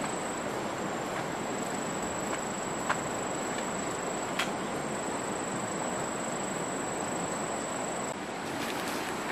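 Steady rush of a flowing stream, with an insect's high continuous whine over it that stops about eight seconds in, and a few light clicks.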